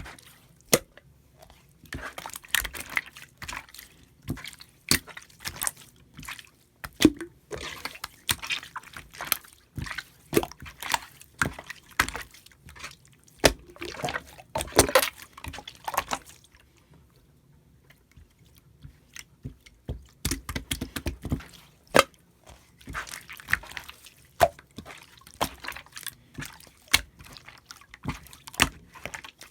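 White slime being squished, pressed and stretched by hand, giving irregular runs of sticky wet clicks and crackling pops. The clicking stops for a few seconds a little past the middle, then starts again.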